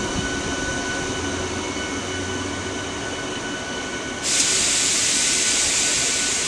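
Three-phase MEMU electric train pulling away, its electric traction drive giving a steady whine over a low rumble. About four seconds in, a louder, steady hiss cuts in suddenly and covers the whine.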